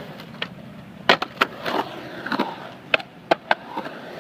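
Skateboard rolling on concrete, its wheels rumbling steadily, broken by several sharp, irregularly spaced clacks and knocks as the board and trucks strike the ramp.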